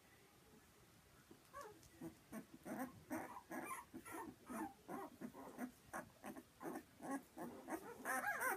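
Newborn puppy whimpering and squeaking in quick, repeated short cries. The cries start about a second and a half in and grow louder and higher near the end.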